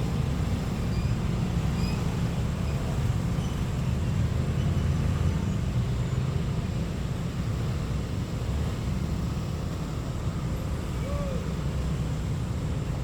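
Steady low rumble of a passenger train running, even and unbroken, with a few faint short chirps about eleven seconds in.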